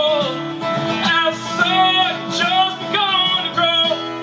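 Acoustic guitar played with a man singing long, wavering held notes.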